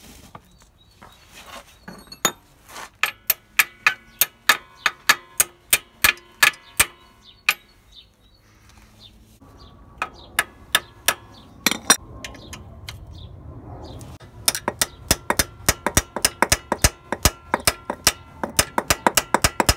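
Hand tools working the rusty exhaust manifold bolts on a two-stroke Yamaha Aerox scooter: a socket ratchet and an adjustable spanner clicking against the metal. The sharp metallic clicks ring briefly and come in runs of about three a second, with a pause around the middle and a faster run in the last few seconds.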